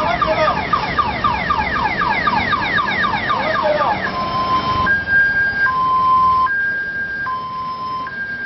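Electronic siren of a vehicle escorting a motorcade. It starts as a fast yelp of quick falling sweeps, about five a second. About four seconds in it switches to a two-tone hi-lo, each note held just under a second.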